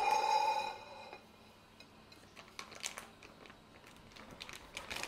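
A plate rings and fades away over about the first second after being set down on the counter. Faint scattered clicks and rustling follow.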